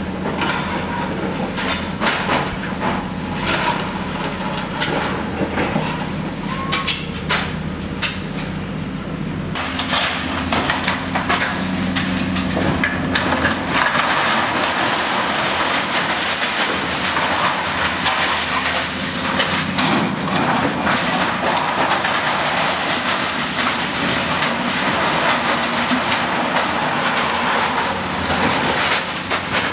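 Komatsu hydraulic excavator's diesel engine running steadily while its bucket crushes and drags steel roof framing and sheet metal. The result is a continuous clatter of metal and debris, with frequent knocks and scrapes.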